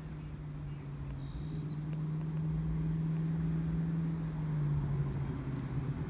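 A passing engine's steady hum, growing louder and then dropping in pitch near the end as it goes by.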